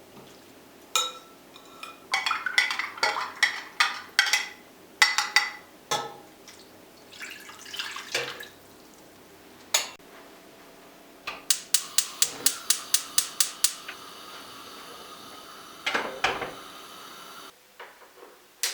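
Dishes and cutlery clinking and clattering as they are handled, with sharp ringing knocks. Partway through comes a quick, even run of about a dozen clinks, and there is another clatter near the end.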